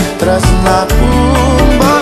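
Recorded music from a Javanese pop song: a band accompaniment with a steady beat and bass under a wavering melodic line.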